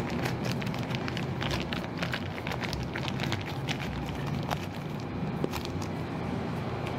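Plastic piping bag crinkling and clicking as it is handled and filled with meringue, a scattered run of small crackles over a steady low hum.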